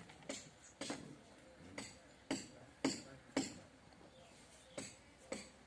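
Goat hooves clattering on a hard floor: about eight sharp, irregular clicks and knocks, the loudest a little past the middle.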